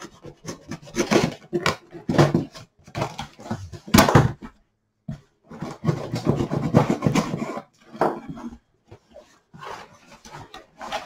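Knife slitting the packing tape on a cardboard shipping box, then cardboard flaps scraping and rubbing as they are pulled open, in a run of irregular rasping strokes. The loudest is a sharp rip about four seconds in.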